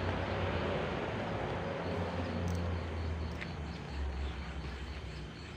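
A steady low droning rumble with a hiss over it, the unexplained sound heard in the empty factory building.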